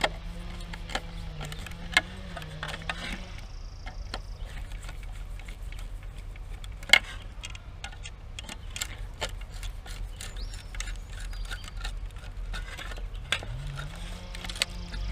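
Scattered small clicks and taps, two of them louder, about 2 and 7 seconds in. Over them an engine drones, wavering in pitch at the start and rising then falling near the end.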